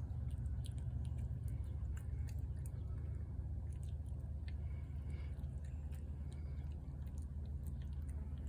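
A feral tabby cat chewing food from a plate, with small irregular clicks over a steady low rumble.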